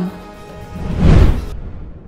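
Background music with a whoosh transition effect that swells to a peak about a second in and then fades away.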